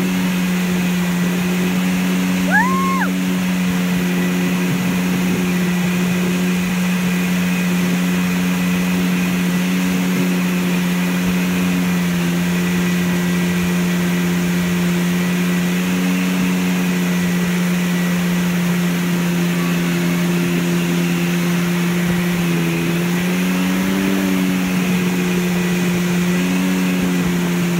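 Tow boat's engine running steadily at speed, a low even hum over the hiss of the wake, its pitch wavering slightly near the end. A short rising tone sounds once, about two and a half seconds in.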